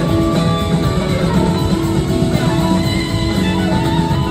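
Live blues-rock band playing an instrumental passage: an electric guitar lead with bending, gliding notes over drums and keyboards.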